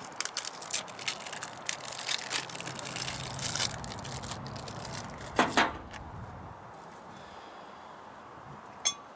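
Metal parts and tools clinking and knocking against each other in rapid clicks, then two louder knocks about five and a half seconds in, and a single short ringing metallic ping near the end.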